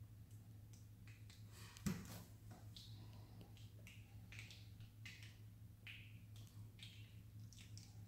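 Faint, irregular clicks and ticks with one louder knock about two seconds in, over a low steady hum.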